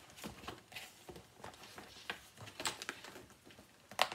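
Irregular light rustling and tapping of cross-stitch projects being handled, with one sharper click near the end.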